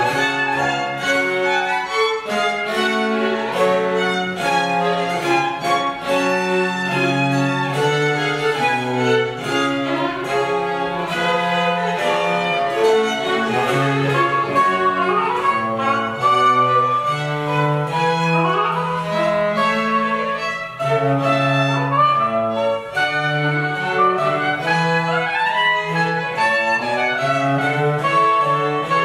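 Baroque ensemble playing: violins and a violone bowing over a harpsichord, with a recorder on the melody. The bass line moves steadily under sustained string notes, and quick rising runs come in the middle and near the end.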